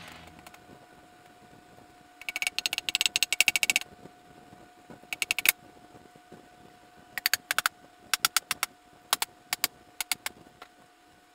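Rapid metallic clicking in several short runs, the longest and loudest a quick string of clicks about two seconds in, followed by shorter bursts spread through the rest, from hand work on a cast-iron transaxle case.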